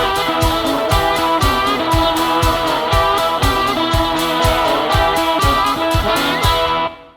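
Background music with a steady beat of about two a second under a melody, cutting off abruptly near the end.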